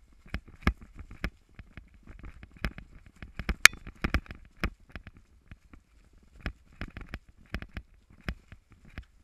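Mountain bike rattling and clattering over a rough, leaf-covered dirt singletrack: irregular sharp knocks from the frame, chain and camera mount as the wheels hit roots and bumps, the loudest about three and a half seconds in.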